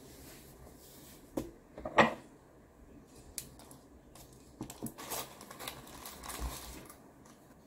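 An offset spatula cutting lemon curd meringue squares in a foil-lined baking tin: a few sharp clicks of the blade, the loudest about two seconds in, then a run of scraping and foil crinkling as a square is worked loose and lifted out.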